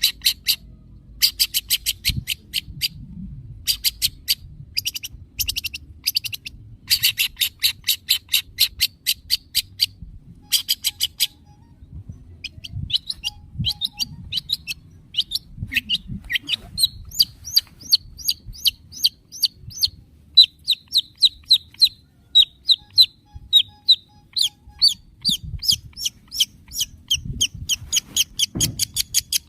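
Long-tailed shrike (cendet) calling: for the first ten seconds or so, bursts of harsh, rapid chattering, then a run of quicker, clearer single notes repeated two or three times a second.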